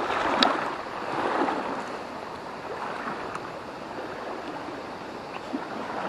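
Steady rush of a flowing river, with one sharp click about half a second in.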